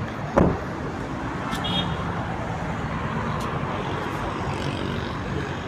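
The tailgate of a Daihatsu Move hatchback being shut: one sharp thud about half a second in. After it, steady background noise.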